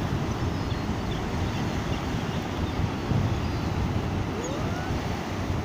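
Steady wind and surf noise, with faint gull calls over it, including a couple of short rising cries near the end.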